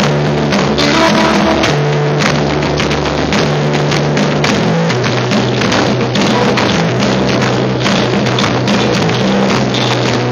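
Instrumental rock played live on a drum kit with cymbals, over held low notes that step to a new pitch every second or so.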